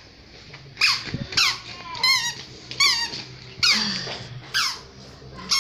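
A run of short, high-pitched squeaks, about one every second or less, each sliding down in pitch; two in the middle warble.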